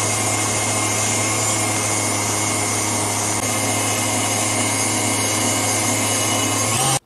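Electric stand mixer running, its wire whip beating heavy cream in a stainless steel bowl into whipped cream: a steady motor hum with a whirring hiss, which stops abruptly just before the end.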